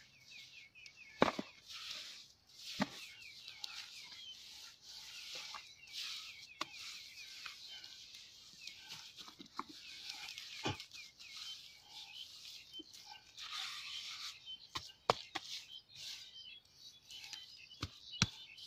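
Hands scooping, scraping and patting damp mud around the rim of a plastic bucket sunk in the ground, with scattered sharp taps. A steady high hiss runs underneath.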